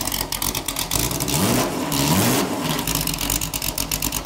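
Southern GT40 replica race car's engine idling loud and uneven, then blipped twice in quick succession about a second and a half in, the revs snapping up and dropping straight back each time before it settles to idle again. The pickup is violent and fast.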